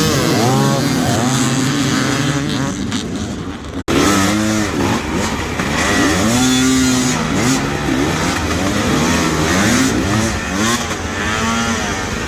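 Dirt bike engines revving hard in repeated rising and falling throttle blips, as in off-road riders working through an obstacle; the sound breaks off abruptly about four seconds in and picks up again.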